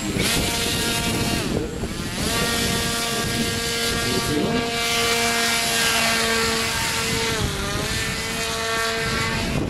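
RC paraglider trike's propeller motor at full power through its takeoff roll and climb-out: a steady high whine that dips in pitch briefly about two seconds in and again about three quarters of the way through. Wind rumbles on the microphone underneath.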